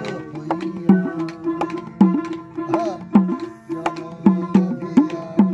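A dotara plucking a melody over a dubki hand drum beating a steady rhythm. The drum's low strokes bend down in pitch. This is Baul folk music.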